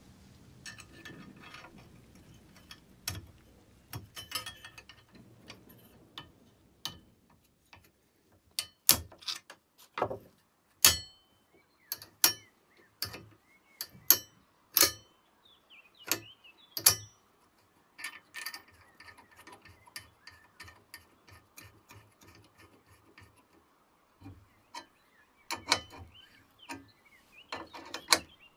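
Sharp metal clicks and taps from the brass parts of an antique blowtorch being handled and fitted together. The loudest come about one a second through the middle, with softer clusters of clicks before and after.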